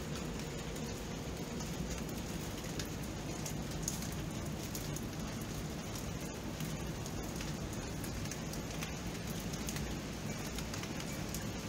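Steady rain falling, an even hiss with many small drops ticking on surfaces.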